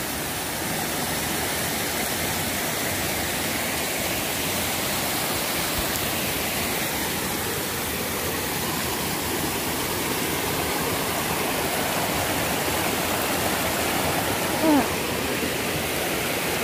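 Small mountain creek rushing steadily over rocks. Near the end there is a brief pitched sound.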